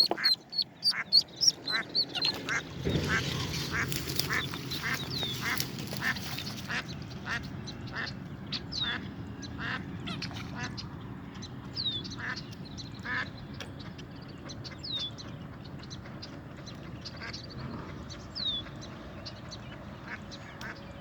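Mallard ducklings giving high, falling distress peeps while a mallard hen answers with repeated quacks. The ducklings' calls draw the hen in to adopt them. A rushing noise, like wind or handling on the microphone, runs from about three to seven seconds in.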